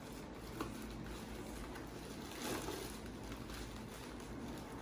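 Steady low background hiss with a faint click about half a second in and a brief soft rustle about halfway through.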